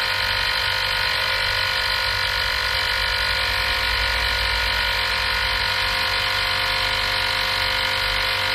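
TGBOX cordless portable tire inflator's small piston compressor running steadily with an even buzzing hum, pumping up a bicycle tire.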